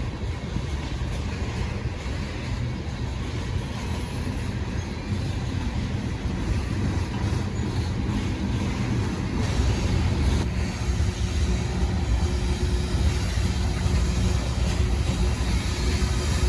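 BNSF freight train rumbling, growing louder about ten seconds in, with a faint steady whine joining at that point.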